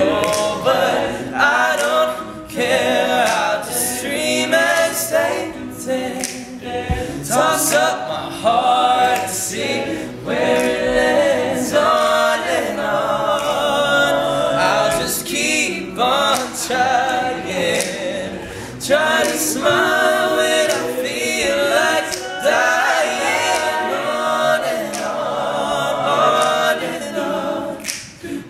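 All-male a cappella group singing a song in close harmony, with sharp percussive clicks recurring under the voices.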